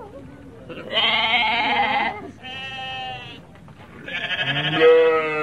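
Sheep bleating three times: two loud, quavering bleats about a second long, with a quieter bleat between them.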